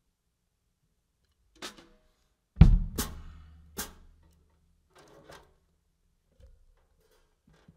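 Drum kit struck a few times with sticks: a hit about a second and a half in, then the loudest, a low drum hit that rings on, followed quickly by two more sharp strikes, then a few faint taps.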